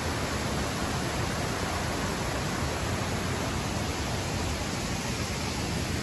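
Fast-flowing shallow stream rushing over rocks: a steady, unbroken rush of water.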